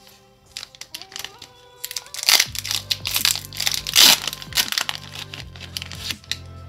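Booster pack wrapper crinkling and being torn open by hand, loudest between about two and four and a half seconds in, over steady background music.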